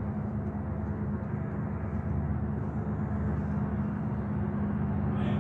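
Train approaching down the track: a steady low drone and rumble that grows slightly louder about two seconds in.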